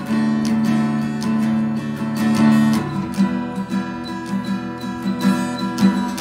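Acoustic guitar strummed. A chord rings through the first three seconds, then is followed by a run of regular strokes.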